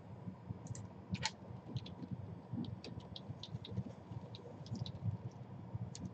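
Scattered light clicks and taps, irregular and a few per second, over a low steady hum.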